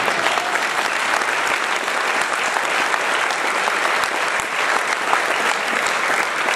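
An audience applauding, many people clapping at once in a steady, dense patter.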